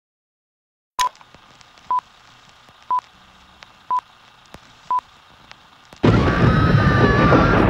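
Film-leader countdown: five short, high beeps, one each second, over the faint crackle and clicks of old film. About six seconds in, a loud rumbling music bed with a wavering high tone starts abruptly.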